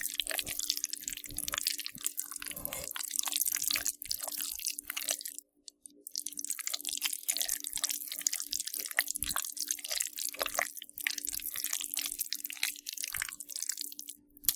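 Squishy, gooey slime sound effect: a dense stream of small wet pops and squelches. It stops briefly about five and a half seconds in, then picks up again, with a faint steady hum underneath.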